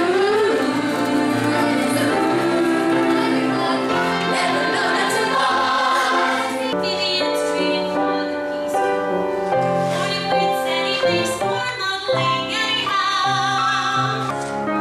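A musical-theatre song: women's voices singing over instrumental accompaniment, the music changing and growing fuller about halfway through.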